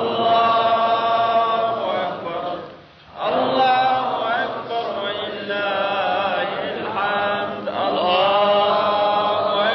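A man's solo voice reciting the Quran in the melodic Iraqi style, drawing out long ornamented vowels that waver in pitch, with a short pause for breath about three seconds in.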